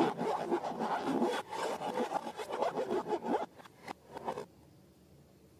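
Rapid rubbing and scraping strokes, dense at first, thinning to a few separate strokes and stopping about four and a half seconds in.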